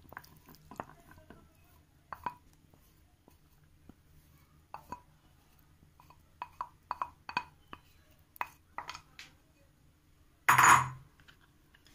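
Spoon and spatula scraping and tapping against a glass bowl while cooked potato and onion are pushed out into beaten egg: scattered light clinks and taps, with one louder knock a little before the end.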